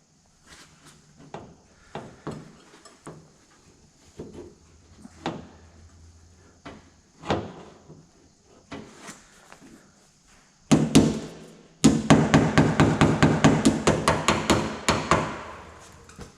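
Body hammer striking the steel skin of a car door, working around a low spot to relieve stress in the dented metal. Scattered single taps come first, then from about eleven seconds in a fast, steady run of blows, several a second.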